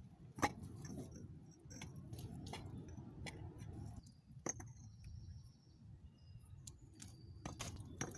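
Bricks being set down by hand and knocking against one another as a dry-stacked brick forge wall is built up: scattered short clinks and knocks, the loudest about half a second in.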